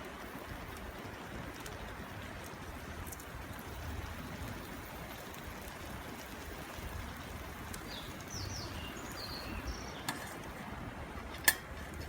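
Steady outdoor rushing noise like running water, with scattered faint ticks. A small bird chirps a few quick falling notes about eight seconds in, and there is a sharp click near the end.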